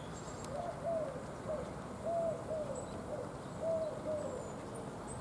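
A dove cooing: three short phrases of two or three soft coos each, about a second and a half apart.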